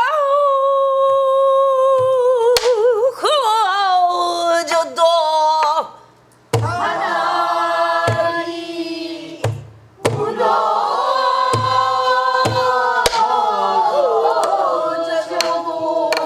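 Pansori singing in long, wavering held notes, with a few strokes on a buk barrel drum. After a short break about six seconds in, a fuller line is sung by several voices, with the drum beating under it.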